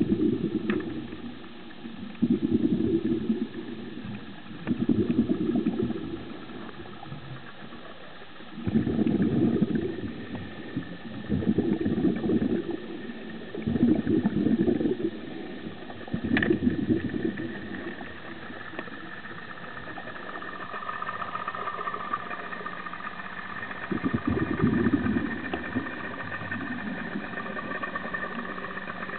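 Underwater sound picked up by a camera in its housing: low whooshing pulses about a second long, every two to three seconds, over a steady engine hum from a boat carried through the water, which grows stronger in the second half.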